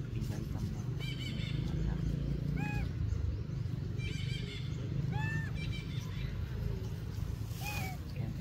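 Macaque calls: three short, high-pitched arched cries about two and a half seconds apart, with brief chittering between them, over a steady low rumble.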